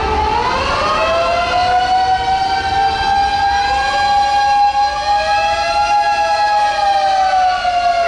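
Fire engine sirens wailing on an emergency run: one wail rises about a second in and holds a long steady note, easing down near the end, while a second siren wavers beneath it.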